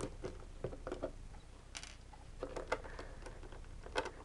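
Small screwdriver turning screws out of the bottom of a plastic case, making scattered light clicks and scrapes.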